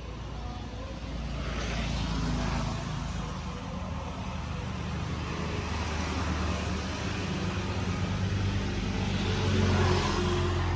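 Motor vehicle engines running close by, a steady low rumble that swells about two seconds in and again near the end as vehicles pass.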